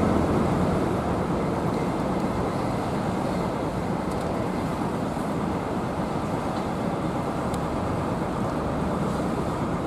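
Intercity coach's diesel engine running as the bus rolls slowly forward at low speed, a steady low drone.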